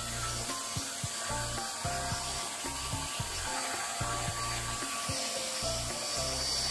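Handheld hair dryer blowing steadily, with background music with a steady bass beat under it.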